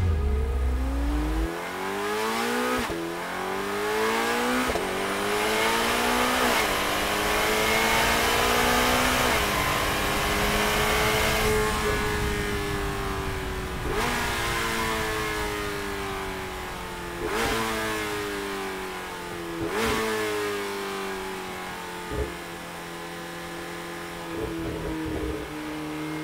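2025 Corvette ZR1's twin-turbocharged flat-plane-crank V8 accelerating hard through the gears. Its exhaust note climbs in pitch and breaks off at each upshift: several quick shifts, then one long high-revving pull, then more rising pulls and shifts. It settles to a steadier, quieter note near the end.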